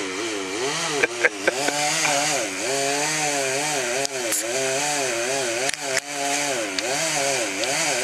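Poulan chainsaw running while cutting into a tree trunk, its pitch dipping and recovering about once a second as the chain takes and sheds the load. A few sharp knocks come about a second in.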